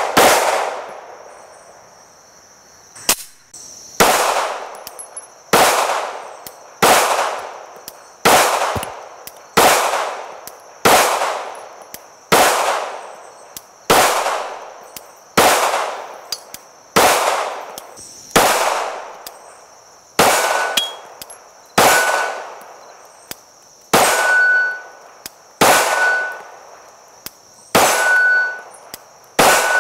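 Glock 17 Gen5 9mm pistol firing in slow, even succession, about one shot every second and a half after a short pause following the first shot, each shot followed by the ringing clang of a struck AR500 steel target.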